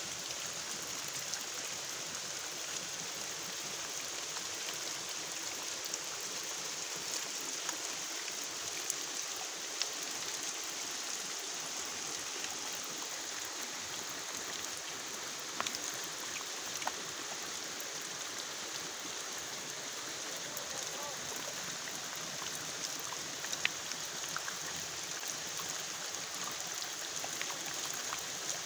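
Falling water from a waterfall: a steady hiss of spray, with scattered sharp drips spattering onto wet rock and leaves.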